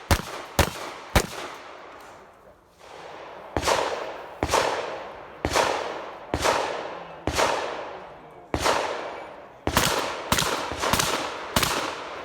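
Remington 870 pump-action 12-gauge shotgun fired in a fast string of shots: three quick shots, a pause of about two seconds, then about ten more roughly a second apart, closing up to about every half second near the end, each followed by a short ringing echo.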